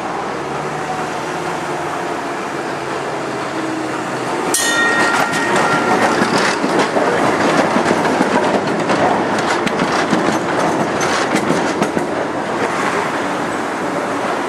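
Vintage Rotterdam tram and trailer passing close on street track: a low rumble that grows as it nears, a sharp metallic clang that rings briefly about four and a half seconds in, then a louder clatter of rapid wheel clicks on the rails as the cars go by, easing off near the end.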